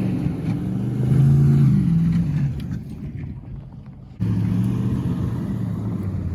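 Car engine revving up and easing off, then dying down. About four seconds in it comes back abruptly, running steadily at a lower pitch.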